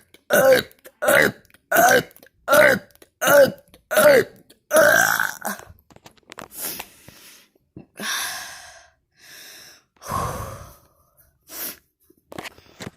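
A person burping deliberately, letting out about six short burps in quick succession, then one longer burp. After that come quieter breathy gasps and exhales.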